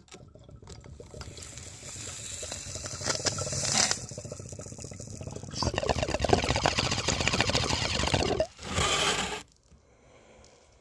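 Water pipe (bong) bubbling as smoke is drawn through the water to clear the bowl: one long pull of about eight seconds that grows stronger after about six seconds, followed by a short rush of air near the end.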